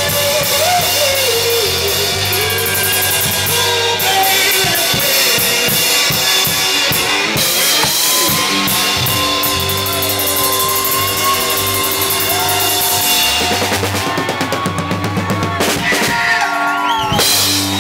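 Rock band playing live, with the drum kit prominent.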